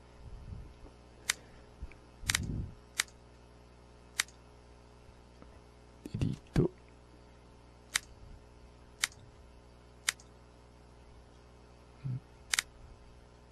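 Computer mouse buttons clicking about ten times at irregular intervals of roughly a second, with a few low, soft thuds in between.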